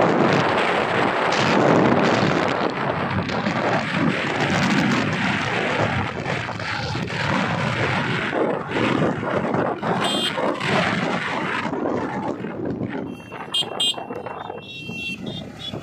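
Wind buffeting the microphone over the running of motorbike engines, easing in the second half. A few short high-pitched beeps come near the end.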